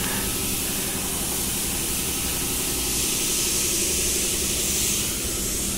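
Steady hiss of compressed air, such as sandblasting or spraying equipment, over a steady low machine hum.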